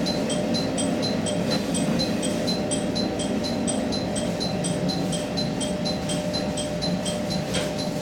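Diesel railcar standing with its engine idling, under a rapid, regular high-pitched chiming tick about three times a second.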